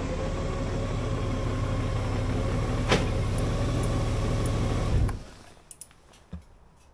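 Honda Gold Wing's flat-six engine idling steadily, with one sharp click near the middle, then switched off about five seconds in: the running stops abruptly, leaving a few faint clicks.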